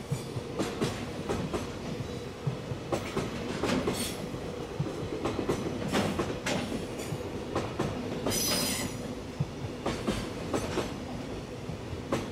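Container flat wagons of a freight train rolling past steadily, with wheels clacking over rail joints and brief high wheel squeals, the loudest about eight seconds in.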